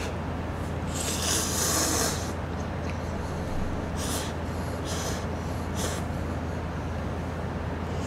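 A man blowing on hot Chapagetti noodles held up on chopsticks, a loud hissing rush of breath, then slurping them in with several shorter noisy slurps and breaths. A steady low hum runs underneath.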